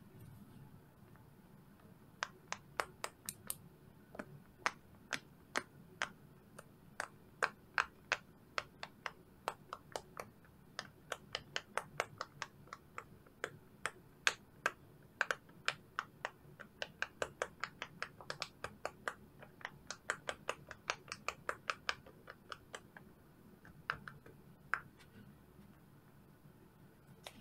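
Silicone push-pop fidget bubbles being pressed in by fingers one after another, a long string of short, sharp pops at about three a second that starts about two seconds in and thins out to a last couple of pops near the end.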